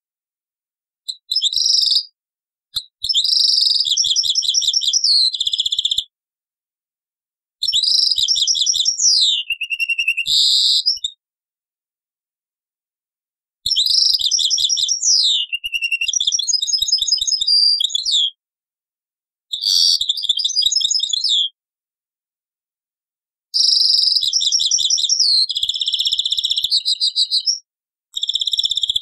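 European goldfinch singing, a recording dubbed from an old cassette: a series of high, fast twittering phrases with trills and some downward-sweeping notes, each lasting one to five seconds and separated by short silent gaps.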